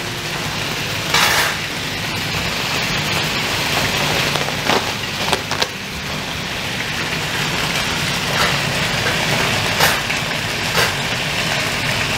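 Chicken drumsticks frying in hot oil in a wok: a steady sizzle with sharp spits and pops every second or two.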